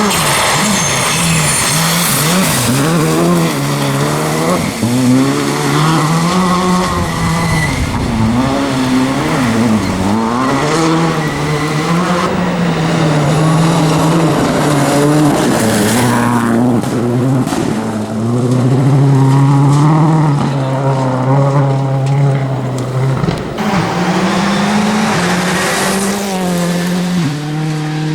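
Rally cars driven hard on a special stage, one after another, their engines revving up and dropping back again and again through gear changes and lifts.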